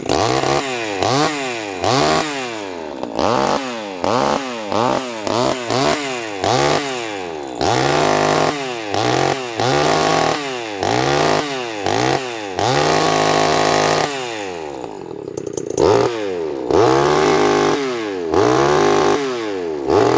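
Vintage Craftsman two-stroke chainsaw running and being revved over and over, its engine note rising to a high whine and dropping back to idle more than a dozen times, with a few longer held revs near the middle and toward the end.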